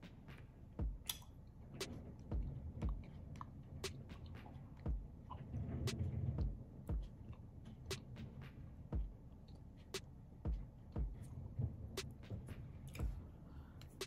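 A person chewing food close to the microphone: irregular soft wet clicks and low thuds of the jaw working, with a denser stretch of chewing about halfway through.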